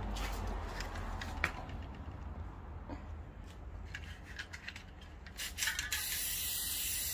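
A few scattered clicks and light knocks, then about six seconds in an aerosol spray-paint can starts a steady hiss as a second coat goes onto plastic car door-handle trim pieces.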